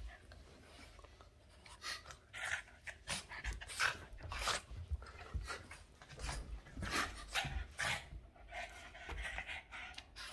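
A Boston terrier panting in quick, irregular breaths while playing.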